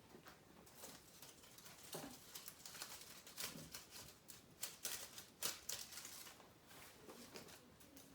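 Faint, irregular rustling and crackling of stiff holly sprigs being handled and pushed into a block of floral foam, with scattered light clicks of leaves and stems.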